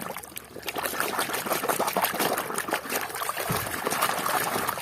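Water pouring and trickling, rising about half a second in, as muddy toys are rinsed in clean water.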